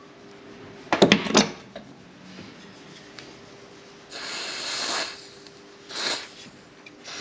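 Hard tools clinking against metal several times in quick succession, then two short hissing bursts a little over a second apart.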